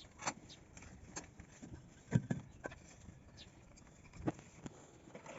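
A few scattered light knocks and taps of wooden pieces being handled at the bench, the loudest about two seconds in and another about four seconds in.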